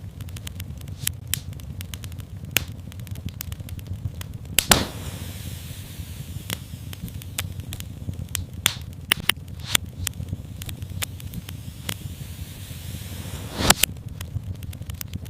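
Wood fire in a fireplace crackling: a steady low rumble with frequent sharp pops and snaps. Two much louder pops come about four and a half seconds in and near the end, the first followed by a brief hiss.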